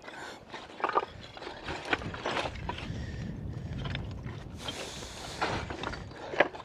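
Footsteps on loose rock: irregular clacks and clinks of stones shifting and knocking together underfoot, over a low rumble of wind on the microphone, with a short scraping rush about five seconds in.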